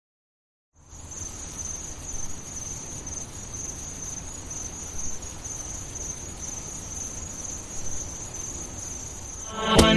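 Insects chirring in one steady, high, unbroken trill over a low rumble, starting about a second in after dead silence. Music with sharp beats cuts in at the very end.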